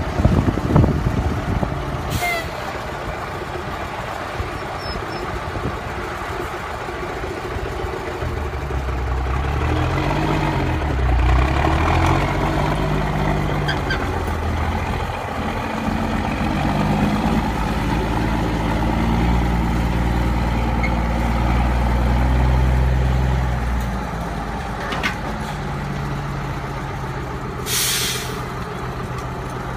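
Diesel engine of a 1980 International TranStar cabover semi tractor pulling a heavy boat trailer up a ramp, its pitch rising and falling as it revs under load between steadier running. A short sharp hiss of air sounds near the end.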